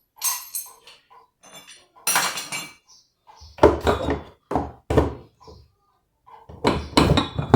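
Washing-machine parts being handled during disassembly: a series of thunks and clunks, about five separate knocks with short pauses between them.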